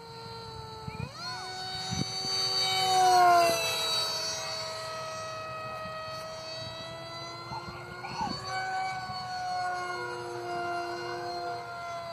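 Electric motor of a Rad Jet 800 RC foam jet running on a four-cell pack, a high whine with several tones, flying by overhead. The pitch jumps up about a second in, the whine is loudest a couple of seconds later and then drops in pitch as the plane passes; it rises and falls again in the second half on another pass.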